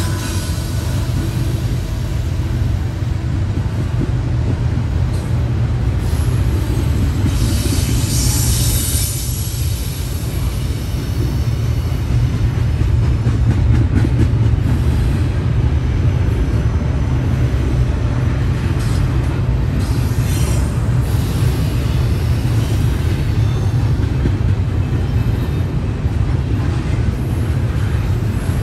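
CSX freight train cars rolling past with a steady low rumble of steel wheels on the rails, and a couple of brief high wheel squeals.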